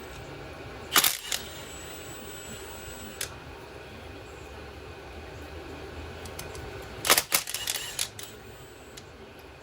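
A few sharp metallic clinks of bolts and hand tools being handled and set down during disassembly: two about a second in, one near three seconds, and a quick cluster around seven to eight seconds, over a faint steady hum.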